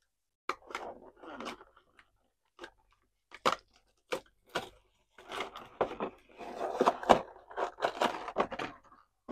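Clear plastic blister being pried and peeled away from its cardboard backing card by hand, in irregular crackles and crinkles that come thicker in the second half.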